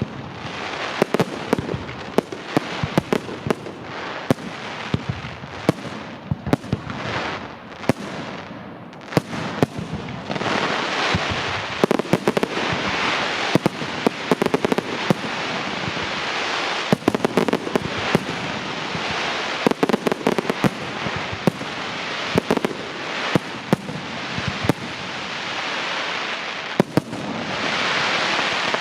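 Fireworks display: a continuous run of bangs from aerial shells mixed with dense crackling, swelling to thick crackle several times.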